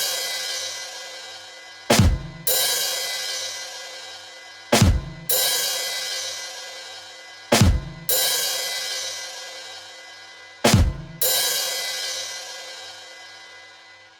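Drum sound effect striking once for each count, four times about three seconds apart: a short low drum hit, then half a second later a cymbal crash that rings out and fades, the last one dying away.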